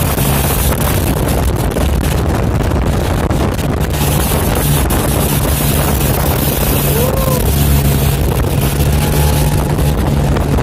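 Outrigger boat's engine running steadily under way, a constant low hum, with wind buffeting the microphone and water rushing past the hull.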